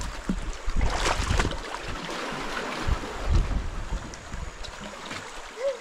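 Wind buffeting the microphone over the wash of sea water, with uneven low rumbles.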